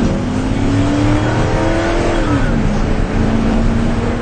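Pickup truck engine accelerating hard, its pitch rising steadily for about two seconds, then dropping and holding steady as it keeps running under load.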